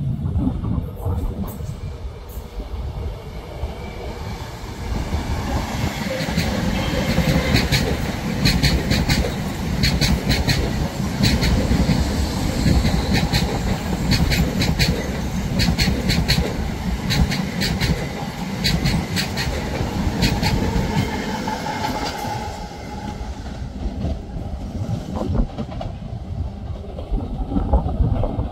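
Electric multiple-unit passenger train passing close, with a steady rumble and its wheels clattering over the rail joints in repeated clicks. The clatter dies away about 22 seconds in, leaving a softer rumble.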